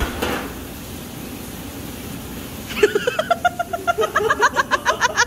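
A person laughing hard, a rapid string of 'ha-ha-ha' that starts about three seconds in.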